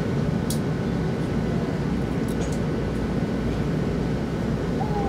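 Steady low hum inside a stationary E2 series Shinkansen car, from its air conditioning and onboard equipment running while stopped at the platform. A few faint, short high clicks sound over it.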